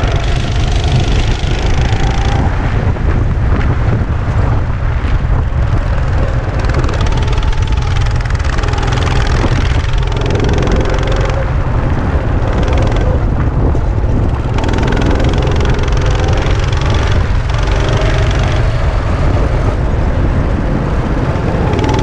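Go-kart engine running under the driver, its revs rising and falling through the curves, with a heavy steady wind rumble on the microphone.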